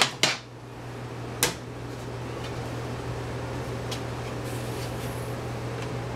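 Two quick knocks right at the start and a third about a second and a half in, then a steady machine hum with a low drone.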